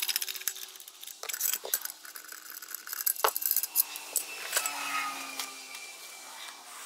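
Steel parts of a crankshaft installer tool clinking as they are taken off the crankshaft and set down on a workbench: a run of sharp clinks, several of them ringing briefly.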